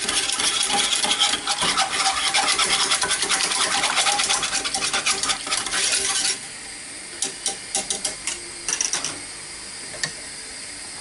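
Wire whisk beating a flour-and-butter roux and milk in a saucepan, fast scraping strokes against the pan, whisked hard to keep the white sauce lump-free. The whisking stops about six seconds in, followed by a few light clicks.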